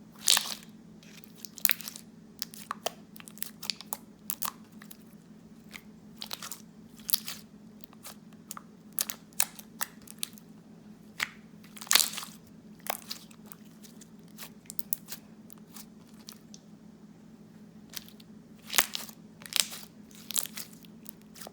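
Thick clear glue slime being squeezed and pressed by hand, giving off irregular crisp clicks and pops, a few every second, over a faint steady hum.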